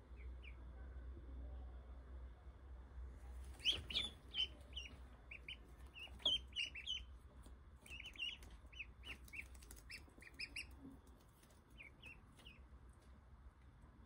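Ducklings peeping: quick, high-pitched peeps in bunches, starting in earnest about three and a half seconds in and thinning out near the end.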